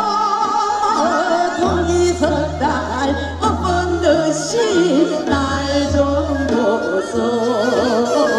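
Women singing a Korean folk-song (minyo) medley through microphones over amplified instrumental backing, the voices wavering with a heavy vibrato above held bass notes.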